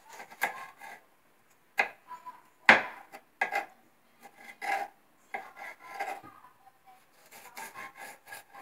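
Kitchen knife slicing yellow bell peppers on a wooden cutting board: a run of short, irregular cuts and scrapes of the blade on the wood, with one sharper knock about three seconds in.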